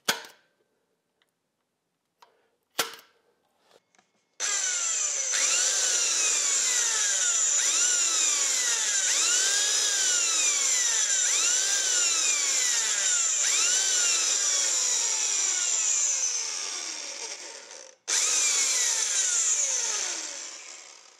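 Bosch corded electric drill fitted with a screwdriver bit, undoing the screws of a crankcase window cover on a Scott two-stroke motorcycle engine. The motor runs for about twelve seconds with a high whine that repeatedly rises and falls in pitch, stops briefly, then runs again for about three seconds and winds down.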